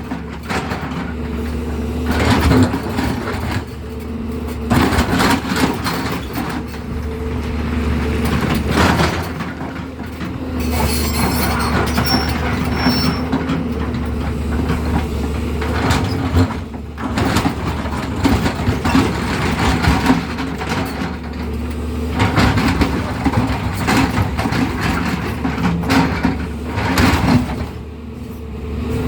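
Tata Hitachi EX200 Super excavator's diesel engine running steadily under load, with loud scraping, grinding and cracking every few seconds as its bucket teeth break up a hard road surface. The metal-on-road scraping gives a screeching, rattling edge.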